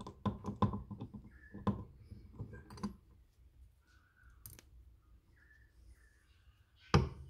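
Cast-iron housing and steel gear of a Dazey Sharpit knife sharpener clicking and knocking together as they are fitted over the shaft: a quick run of small clicks in the first few seconds, then one louder knock near the end.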